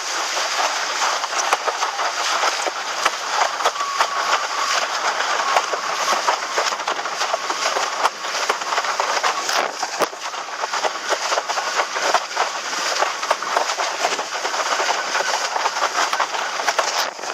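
Strong wind rushing over the microphone with choppy water splashing and slapping: a steady, loud, crackling rush.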